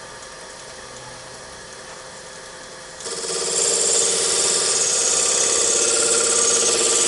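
Wood lathe running with a low steady hum. About three seconds in, a hand-held turning tool meets the spinning wood and a loud, steady scraping cut begins as a rough surface of a turned box is smoothed.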